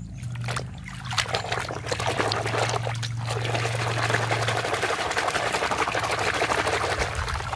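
A hand swishing and scrubbing a plastic toy bus in a basin of muddy water: continuous splashing and sloshing that grows busier about a second in.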